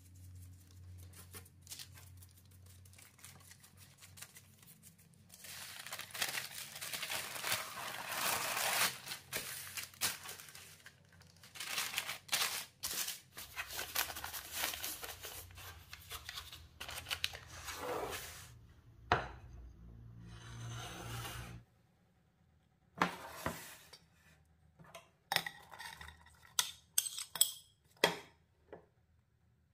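Kitchen preparation sounds: stretches of rustling and scraping, then scattered sharp clicks and knocks of utensils and dishes in the second half.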